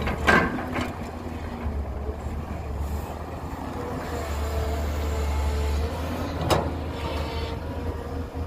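Heavy diesel construction machinery running steadily with a low rumble. Sharp metallic knocks come just after the start and again about two-thirds of the way through.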